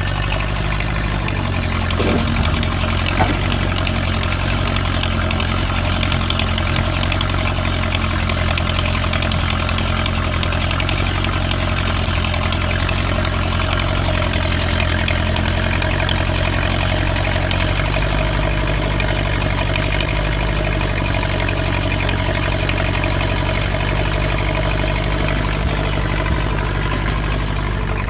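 A 1957 Ford 861 tractor's engine running steadily while it digs a trench. Its note shifts slightly about a second in and again about eighteen seconds in, with two short knocks a few seconds in.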